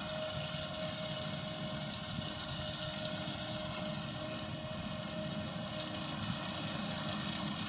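Ropa Tiger 4 self-propelled sugar beet harvester running steadily while lifting beets: a low engine and machinery drone with one steady whine held over it.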